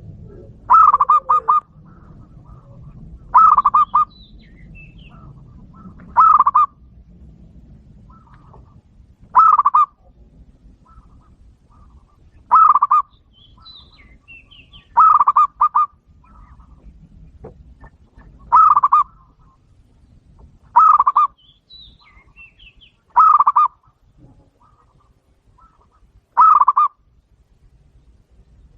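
A dove calling a short, pulsed cooing phrase over and over, about ten times, each roughly every two and a half to three seconds, with faint small-bird chirps between the calls.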